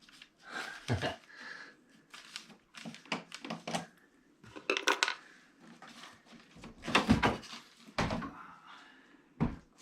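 Hard parts and packaging being handled while unpacking a 3D printer: irregular knocks, clicks and clatter, with the heaviest knocks near the end.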